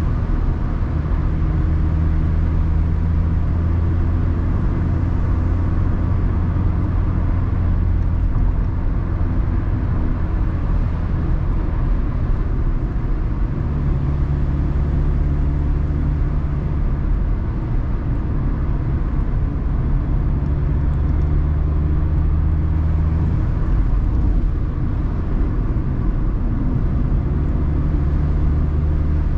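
Mazda ND Roadster's four-cylinder engine running under way with tyre and wind noise, heard from inside the open-top cockpit. The engine note holds steady and dips briefly about halfway through and again near the end.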